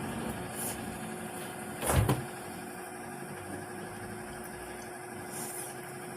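A steady low mechanical hum, with one sharp knock about two seconds in.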